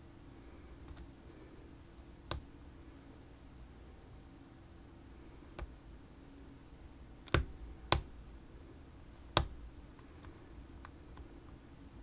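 Sharp clicks from a Ruko Garant Plus lock and the tools working it, a few seconds apart. The three loudest come close together about two-thirds of the way through. A faint steady hum runs beneath.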